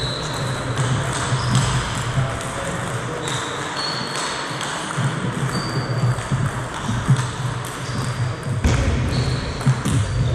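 Scattered clicks of a celluloid table tennis ball bouncing, with several brief high squeaks of sports shoes on the wooden sports-hall floor, all echoing in the hall.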